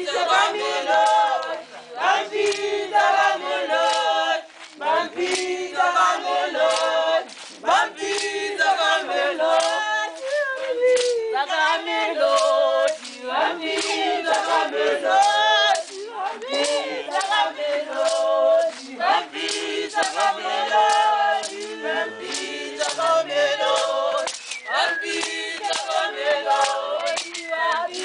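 A choir of mixed voices singing without instruments, with sharp hand claps running through the song.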